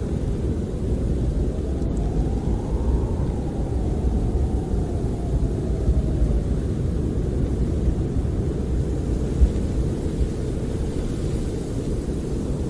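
Snowstorm wind buffeting a camper: a steady low rushing rumble, with a faint howl that rises and falls a couple of seconds in.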